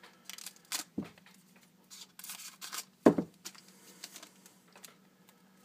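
Foil wrapper of a Panini Titanium hockey card pack crinkling and rustling in short bursts as the opened pack is handled and the cards are pulled out. There is a small knock about a second in and a louder thump about three seconds in.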